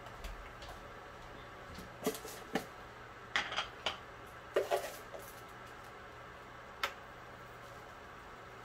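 Kitchen handling sounds: a handful of light clicks and knocks of dishes and utensils, clustered in the middle and one more near the end, over a faint steady hum.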